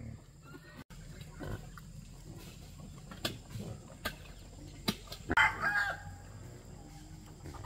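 Chickens clucking, with one loud call from a bird about five and a half seconds in, and a few sharp knocks in between.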